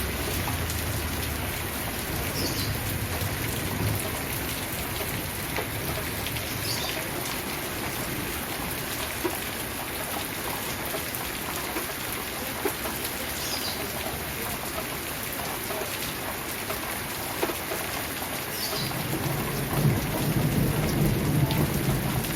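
Steady rain falling, with low thunder rumbling in the first few seconds and building again near the end.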